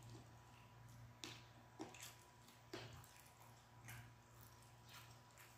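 Faint eating sounds against near silence: about five soft, wet clicks and smacks from chewing fried chicken and fingers picking food off a plate, over a steady low room hum.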